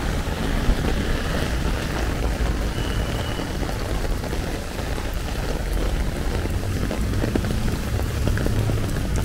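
Heavy rain pattering on an umbrella overhead, a dense steady crackle, with a steady low rumble underneath.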